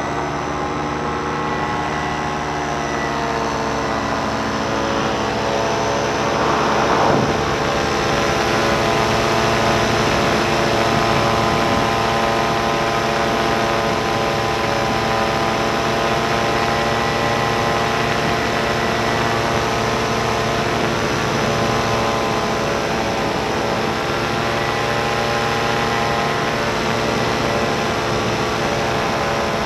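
Tandem paramotor's engine and caged propeller running steadily in flight, heard from the harness seat right in front of it. The note holds even, with a brief swell about seven seconds in.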